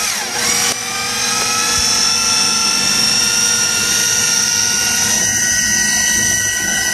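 Food processor motor running steadily with a high whine, churning moist brownie and graham-cracker crumbs mixed with rum into a cheesecake crust.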